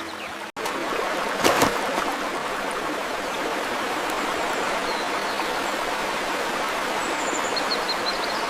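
Steady rushing of flowing water, a stream ambience, starting just after a brief cut-out, with one short louder rush about a second and a half in and a few faint high chirps near the end.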